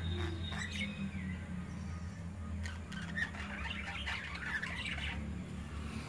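Budgerigars chirping and chattering: a few calls in the first second, then a busier stretch of chirps from about two and a half to five seconds in, over a steady low hum.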